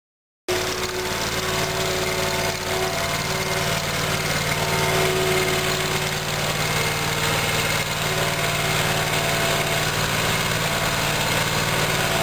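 John Deere Z-Trak zero-turn mower's engine running steadily, cutting in suddenly about half a second in.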